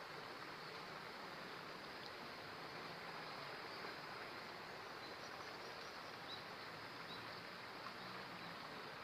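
Faint steady rush of flowing river water, with a few faint short high chirps about five to seven seconds in.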